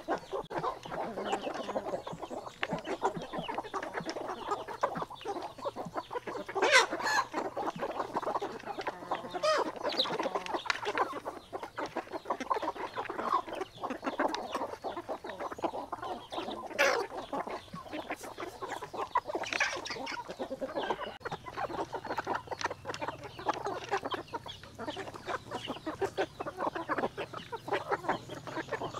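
A flock of chickens clucking steadily as they feed, with a few louder, sharper squawks standing out about a quarter and again about two-thirds of the way through.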